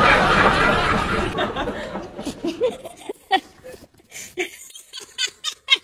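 People laughing, loudest in the first second or so, then fading to scattered short chuckles and small noises.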